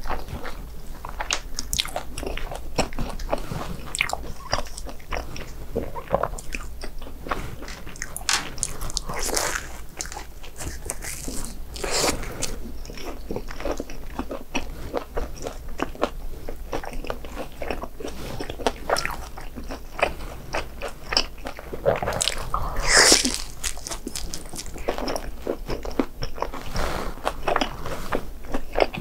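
Biting, crunching and chewing of crispy fried BHC Bburing snacks, irregular crunches throughout with one louder crunch about 23 seconds in.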